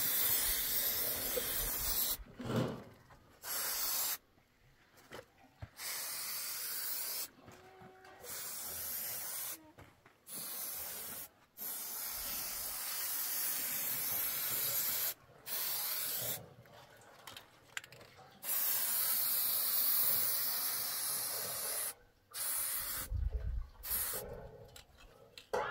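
Aerosol spray-paint can hissing in about ten bursts of one to a few seconds each, starting and stopping sharply with short pauses between.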